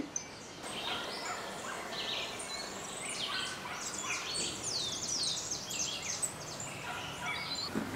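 Songbirds chirping and singing, a busy run of quick downward-sweeping calls starting a moment in, over a faint even background noise.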